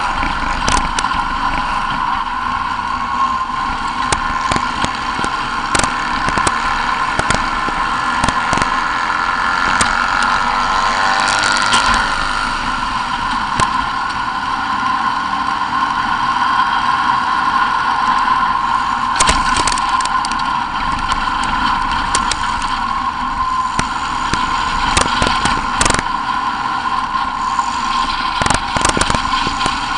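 Racing buggy engine heard from on board, running hard at a steady pitch over a dirt track. Sharp knocks and clatters from the bumps come through here and there.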